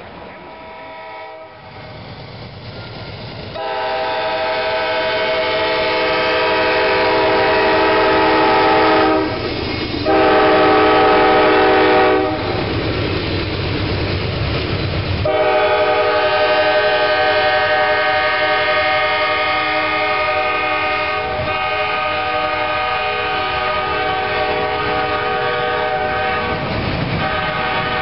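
Diesel locomotive horn sounding three long blasts: the first from about four to nine seconds in, a shorter one soon after, and a last one held for about twelve seconds. Under and between the blasts, a freight train's cars rumble past on the rails.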